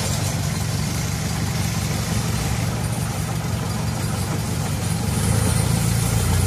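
A moored wooden boat's engine idling with a steady low hum, growing louder about five seconds in.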